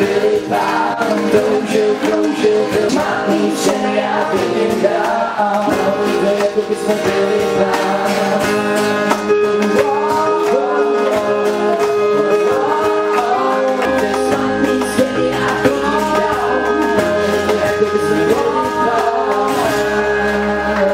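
Live pop song: a male singer over guitar and band accompaniment, with a low bass line coming in about two-thirds of the way through.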